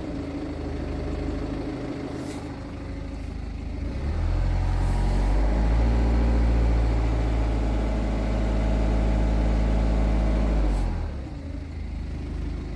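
BMW B47 2.0-litre four-cylinder turbodiesel engine running at idle. About four seconds in it is revved up and held at a raised speed for some six seconds, then drops back to idle near the end. This is an engine with a noisy timing chain.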